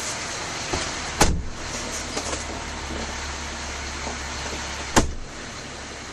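Steady vehicle noise around a fire engine, broken by two sharp clacks about four seconds apart. A low rumble starts with the first clack and stops with the second.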